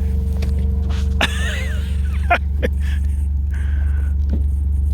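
Vehicle engine running, a steady low hum. It is overlaid by a few sharp clicks and a short wavering call about a second in.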